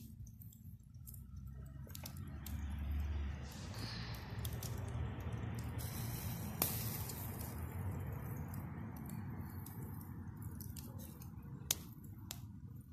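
Wood fire under a grill of skewered meat, a faint steady hiss with a few sharp crackles, the clearest about six and a half seconds in and again near the end.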